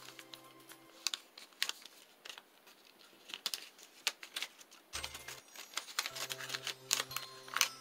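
A glue stick rubbed over folded origami paper while hands press and turn it: a run of small dry taps, scrapes and paper rustles.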